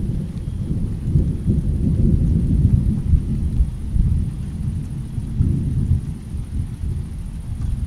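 Low, rolling thunder over steady rainfall. The rumble swells about a second and a half in and again past the middle.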